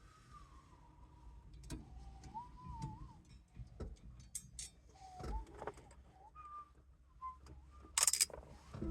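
A person whistling softly, a thin wandering tune that comes and goes, over small metallic clicks and clinks of parts being handled. A short, louder rattle comes near the end.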